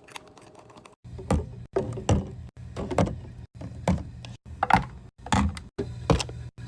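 Items being put into a fridge: a run of knocks and clunks, one or two a second, over a low steady hum, broken by short dead-silent gaps.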